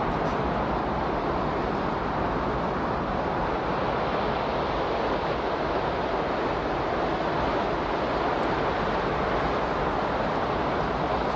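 Steady, even rushing noise, like surf or wind, that holds one level without rising, falling or any distinct event: the masking sound bed of a subliminal audio track.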